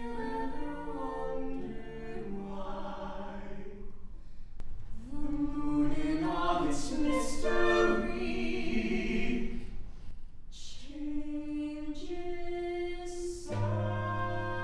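Several voices singing together in harmony, unaccompanied, in phrases broken by two short pauses; near the end a low accompanying note comes in under the voices.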